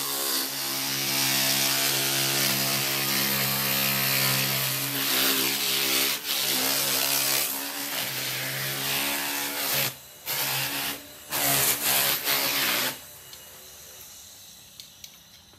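Handheld power tool spinning an abrasive disc on a long shaft against the wood of a tree trunk: a steady motor hum under a loud grinding hiss. It stops briefly twice, about ten and eleven seconds in, and cuts off about thirteen seconds in.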